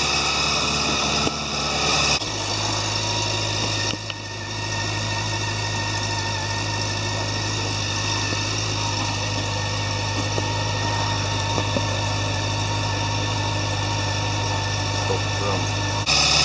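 Honda CB400 Super Bol d'Or's inline four-cylinder engine idling steadily. Its tone shifts about two seconds in and it grows louder near the end.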